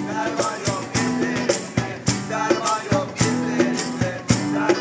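Live acoustic band: two acoustic guitars playing over a cajón beaten in a steady rhythm.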